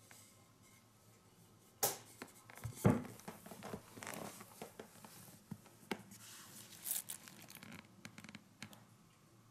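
Hands handling cardboard firework tubes and boxes: rustling and scraping of packaging, with scattered knocks as pieces are picked up and set down. A sharp knock comes about two seconds in and a heavier thud about three seconds in, the loudest sound.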